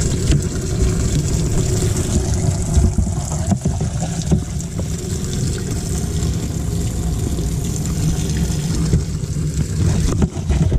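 Steady wind rumbling on the microphone of a body-worn camera, with a low hum under it.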